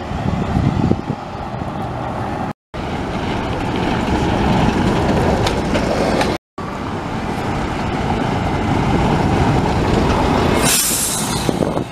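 Bus traffic at close range: a double-decker bus's engine running as it pulls away, then a single-deck bus running past close by, with a loud burst of hiss near the end. The sound drops out to silence twice, briefly.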